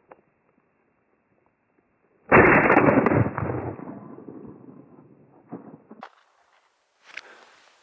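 A single shotgun shot about two seconds in, a sudden loud blast that dies away over about a second and a half.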